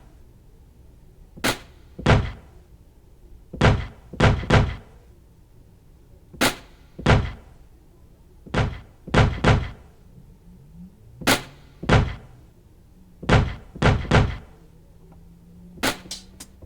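Sparse programmed drum beat: heavy, thudding hits in a repeating pattern, two or three strikes roughly every two and a half seconds. A faint low bass note comes in near the end.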